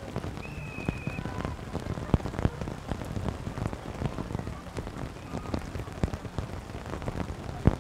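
Rain pattering, with many irregular sharp taps of drops on the microphone. About half a second in, a referee's whistle gives one short, steady blast as play stops.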